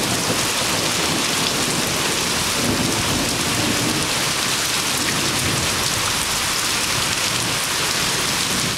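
Heavy rain falling steadily during a thunderstorm, with a low rumble of thunder under it about three seconds in.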